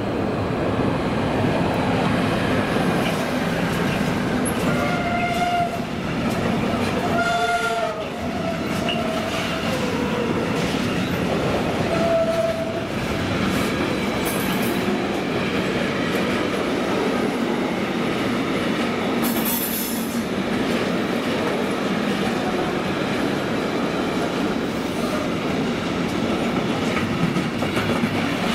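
A container freight train hauled by an electric locomotive rolling past at speed: a steady, loud rumble and clatter of the flat wagons' wheels on the rails. A few brief squealing tones sound about five to eight seconds in and again around twelve seconds.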